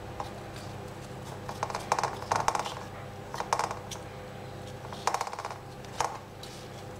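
Light clicks and taps in four short clusters as slices of apple are picked from a ceramic bowl and laid on pizza dough in a metal pan, over a steady low hum.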